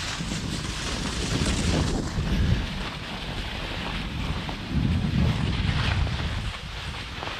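Wind buffeting the microphone, with a steady hiss and two stronger low rumbling gusts, one between about one and two and a half seconds in and another from near five to six seconds in.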